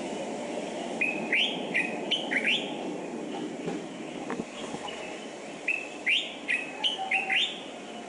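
Common bulbul song from a field recording: two short phrases of quick, rising notes, one about a second in and another about six seconds in, over a steady background hiss and rumble.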